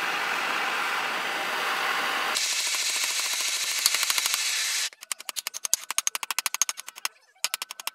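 Hand-held gas torch hissing steadily on a metal piece clamped in a bench vise. Partway through, fast light hammer taps start over the hiss. Then the hiss stops and the metal-on-metal tapping goes on alone at about ten taps a second, with a short second run of taps near the end.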